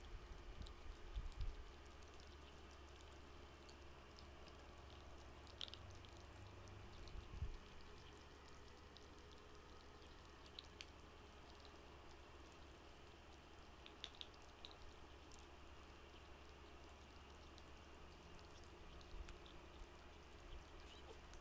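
Kittens eating: faint, scattered wet clicks of chewing and lapping over a low steady hum.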